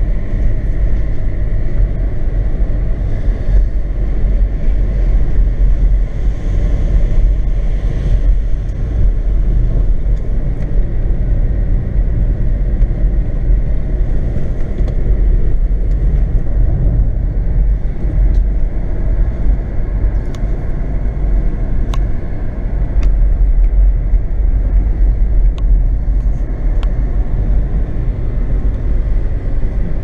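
Steady rumble of a car's engine and tyres on the road, heard from inside the cabin while driving, with a few faint ticks in the second half.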